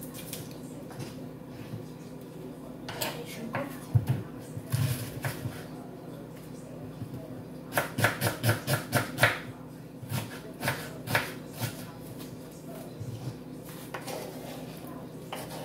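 Kitchen knife chopping green onion and tomato on a wooden cutting board: scattered knocks, with a quick run of about eight chops about eight seconds in.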